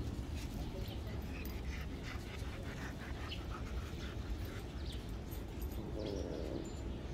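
Dogs moving about close by, with faint short dog sounds scattered throughout over a steady low rumble.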